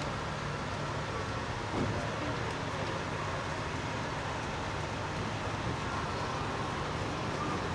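A 15-inch-gauge miniature train running slowly, heard from aboard an open passenger car: a steady low running hum, with a single brief knock about two seconds in.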